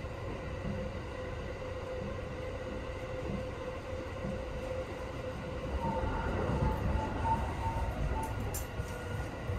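Sunrise Express sleeper train running, heard from inside the carriage: a steady low rumble of wheels on track with a steady hum. About six seconds in, a faint wavering whine rises over it.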